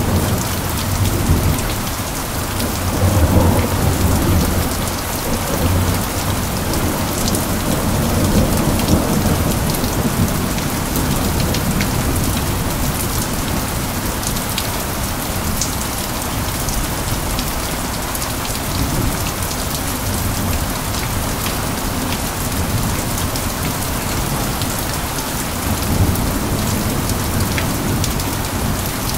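Steady heavy rain falling on surfaces, with scattered close drop ticks. Low thunder rumbles roll in a few seconds in and again near the end.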